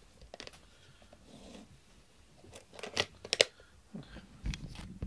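Small objects being handled on a desk: a few sharp clicks, the loudest about three and a half seconds in, with soft rustling between them.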